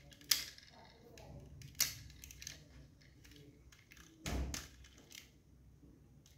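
Handling noises from a diecast model motorcycle turned over in the hands: two sharp clicks in the first two seconds and a duller knock a little after four seconds.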